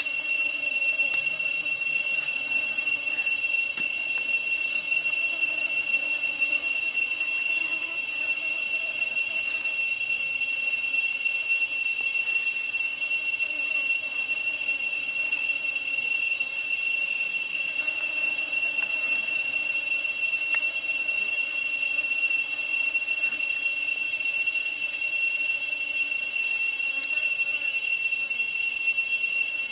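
Insects in the forest keep up a steady, high-pitched buzzing drone that never breaks, with a few faint ticks from a knife slicing on a wooden chopping block.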